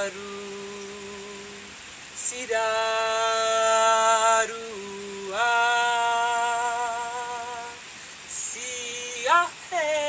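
A woman singing wordless light language in long held notes, each about two seconds, with a slight waver. Near the end her voice breaks into quick upward leaps, like yodeling.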